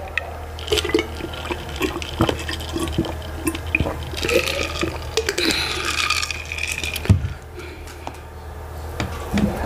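Close-miked drinking of water from a glass: sips, gulps and swallows with small wet clicks, ending in one sharp knock about seven seconds in.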